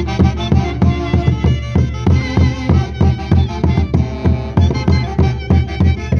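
Live Andean orchestra playing a santiago, with a steady drum beat of about three beats a second under the melody lines.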